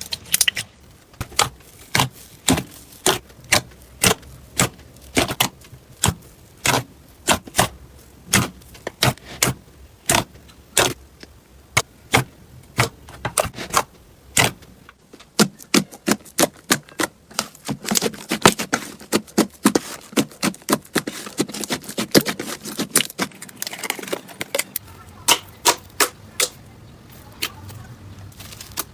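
Slime being pressed and squeezed, giving a run of sharp clicking pops, about two or three a second. About halfway through the clicks come quicker and closer together.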